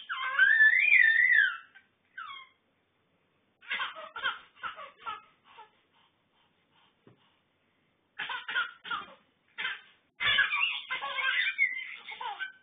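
Baby laughing in bouts of short, choppy giggles with silent pauses between, opening with a long high squeal that rises and falls in pitch.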